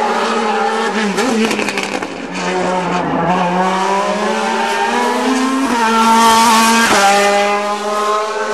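A GT race car's engine accelerating hard, its pitch rising steadily over several seconds and then dropping sharply at a gear change about seven seconds in.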